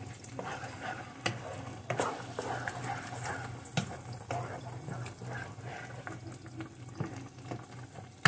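Wooden spoon stirring a thick, creamy sauce with ground turkey in a nonstick frying pan: wet squelching and scraping, with irregular knocks of the spoon against the pan. A low steady hum runs underneath.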